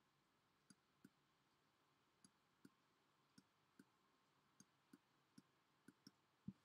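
Near silence broken by about a dozen faint, irregular clicks: a stylus tip touching down on a pen tablet as a word is handwritten stroke by stroke.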